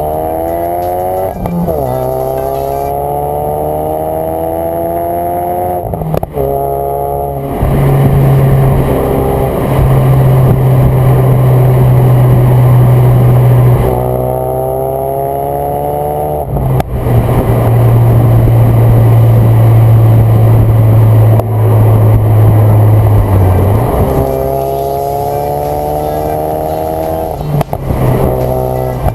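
Ford Focus RS turbocharged four-cylinder engine accelerating hard through the gears. Its pitch climbs steadily in each gear, then drops at each of about four quick upshifts. In the middle stretches a loud, steady low drone sits under the rising engine note.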